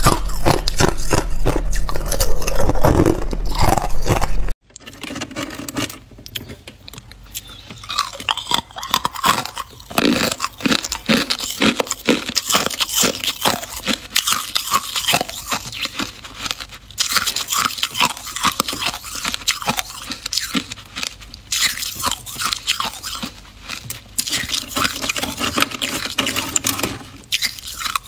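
Hard clear ice being bitten and crunched close to the microphone, over a low hum. About four and a half seconds in the sound cuts to quieter, rapid clicking and scraping of ice cubes being handled in a container.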